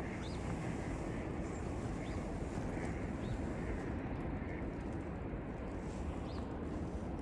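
Steady rumble of strong wind on the microphone outdoors in a snowstorm, with a few faint short bird chirps now and then.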